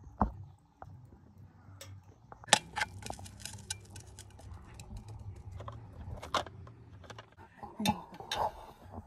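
A metal serving spoon clinking and scraping against a stainless steel bowl of cooked greens, in a run of short sharp clinks.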